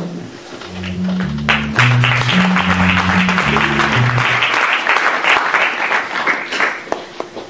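Audience applauding from about a second and a half in until near the end. Under its first few seconds runs a short line of low musical notes, each held about half a second.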